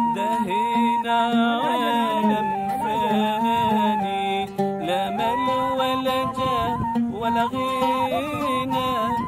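A ney reed flute plays a held, ornamented hymn melody over plucked oud accompaniment.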